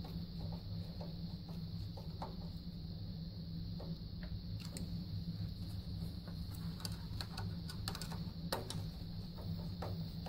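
Irregular small clicks and scrapes of a screwdriver turning and tightening the wire terminal screws on an electric water heater thermostat, over a steady low hum.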